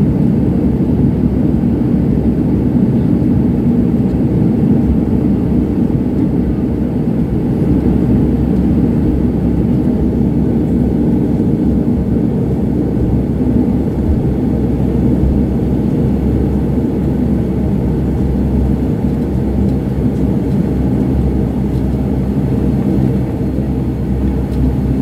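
Dash 8 Q400's Pratt & Whitney PW150A turboprop engines and propellers, heard inside the passenger cabin as a loud, steady low drone while the aircraft rolls out on the runway after landing. The drone eases slightly near the end as the plane turns off the runway.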